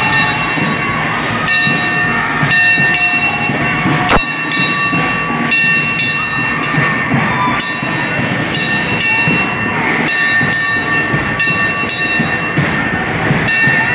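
Live festive band music: sustained horn-like chords over a steady beat, with crowd noise underneath.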